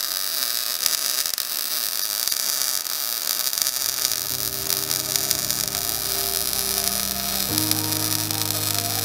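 Welding arc crackling steadily as frame gussets are welded on. Sustained low music notes come in about four seconds in and change about three seconds later.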